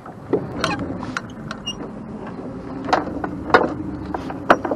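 A small fishing boat's motor running steadily at low speed while a gill net is paid out over the side, with irregular sharp clacks as the net's floats and weights knock against the hull.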